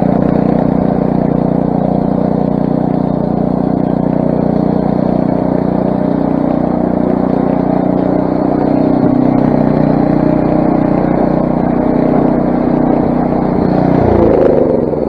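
Craftsman single-stage snowblower with a 6 hp Briggs & Stratton engine running steadily at working speed. Near the end its pitch drops as the engine winds down.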